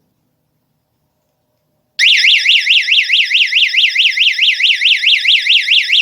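Electronic siren of a cable anti-theft alarm system sounding off about two seconds in: a loud, high warble sweeping rapidly up and down, about five sweeps a second. It is the alarm set off by tampering with the monitored electrical cable.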